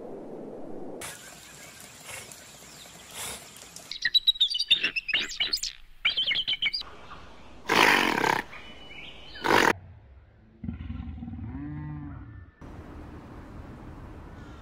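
A string of separate animal calls: quick high-pitched calls about four seconds in, two loud short bursts near the middle, then a pitched call with a wavering tone.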